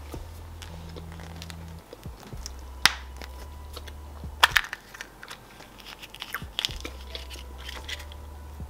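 Plastic toy capsule from a Chupa Chups chocolate egg being worked open by hand: scattered plastic clicks and crackles, with a sharp snap about three seconds in and a louder cluster of snaps about four and a half seconds in. A low steady hum sits underneath.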